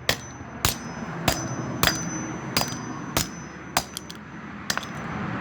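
Toy car being struck again and again, about eight sharp metallic clangs at a steady pace of roughly one and a half a second, each leaving a short high ring.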